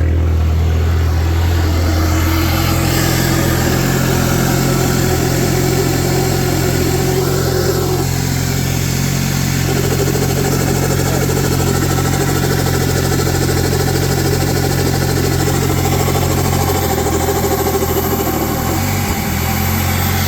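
Turbocharged car engine running steadily at cold-start idle, with a rapid fluttering from the turbo.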